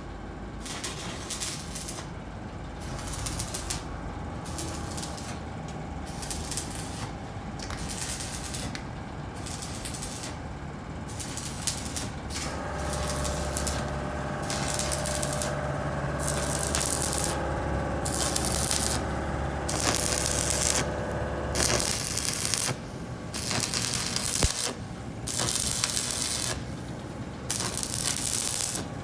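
Electric arc welding on a steel truck floor plate: short bursts of crackling hiss, one after another, as the welds are laid in short stitches. A steady machine hum runs under them through the middle and stops suddenly about three quarters of the way in.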